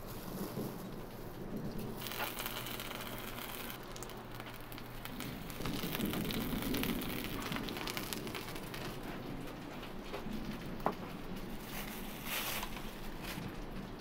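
Breaded chicken strips sizzling in hot oil on a Blackstone flat-top griddle, a steady crackling hiss. A low rumble swells about six seconds in, and there is a single sharp click near the end.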